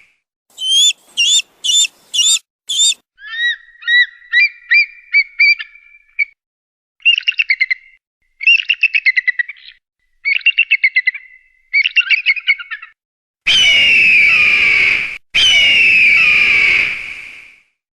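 Kite calls: shrill whistled notes and quavering, trilled calls, played as separate recordings with short silent gaps between them. Near the end come two long whistled calls, each over a layer of background noise.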